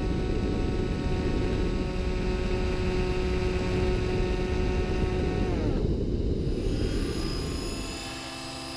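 Radio-controlled model aircraft's engine running at a steady pitch, then throttling back with a falling pitch about five and a half seconds in. Near the end a model helicopter is heard running steadily, somewhat quieter.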